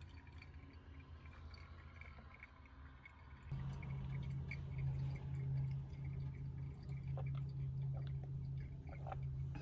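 Faint dripping and small ticks from a pour-over coffee dripper draining into its carafe. From about three and a half seconds in, a steady low hum takes over, with occasional faint clicks.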